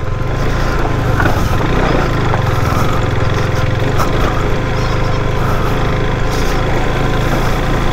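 Motorcycle engine running steadily at low speed, pulling through a pebbly stream crossing, with a constant rushing noise over it.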